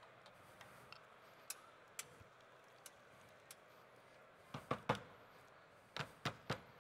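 Faint, sharp clicks and taps of small hard objects, a few single ones and then two quick groups of three, the first about halfway through and the second near the end, over a low room background.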